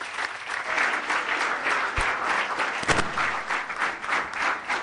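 Audience applauding: dense, steady clapping from many hands, with a couple of louder claps close by around two and three seconds in.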